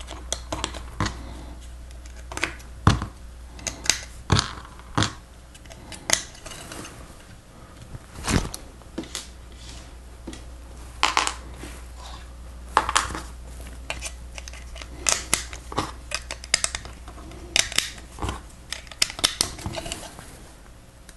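Lego Technic plastic parts clicking and rattling as they are handled, with irregular sharp snaps of friction pins being pressed into beams.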